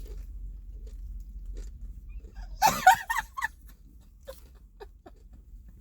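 Crunchy fried chicken sandwiches being chewed, with small crunching clicks. A short, high-pitched vocal sound, a squeal or hum from one of the eaters, comes about halfway through.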